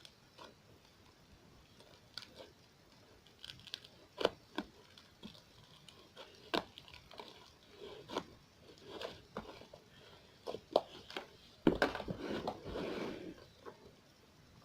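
Bubbly slime being worked by hand: scattered short wet pops and clicks as air bubbles burst, with a denser run of squishing lasting about a second and a half near the end.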